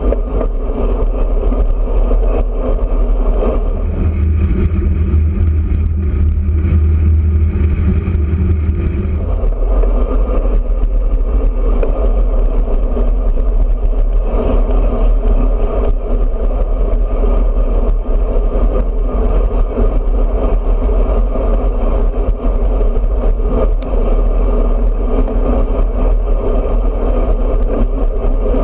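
Steady rush of wind and road noise on a handlebar-mounted camera on a moving road bike, heavy in the low end. From about four to nine seconds in, a deeper steady hum joins it.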